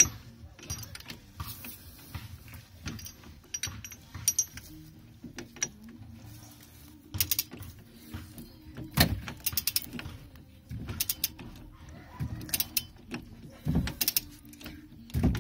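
Socket, extension and ratchet on a Velvet Drive marine transmission's output-shaft coupling nut, clinking and clicking in irregular metal taps, with louder knocks about 9 and 14 seconds in.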